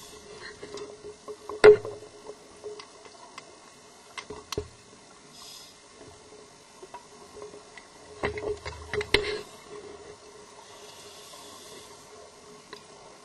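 Underwater sound picked up through a diver's video camera housing: a steady low hum with scattered sharp clicks and knocks, a loud knock about two seconds in, a cluster of knocks with a low rumble around eight to nine seconds in, and a short hiss near the end.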